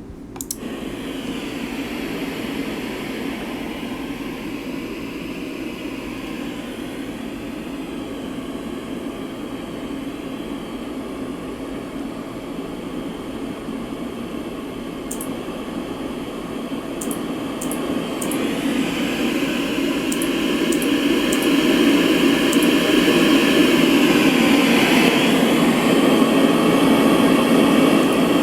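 LectroFan white noise machine playing a steady hiss of fan-like noise, which changes in tone and gets louder about 18 seconds in.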